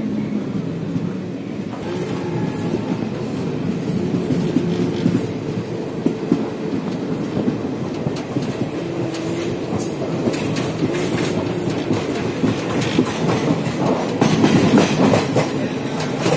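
Passenger train running, heard from inside a carriage: a steady rumble with the clickety-clack of wheels over rail joints, growing louder near the end.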